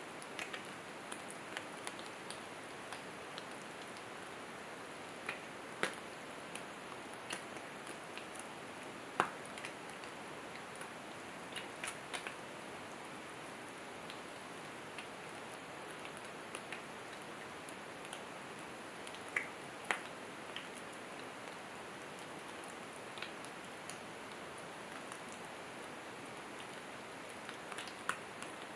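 Back bacon sizzling in a ridged grill pan: a steady hiss of frying fat with scattered sharp pops and crackles, a few of them louder.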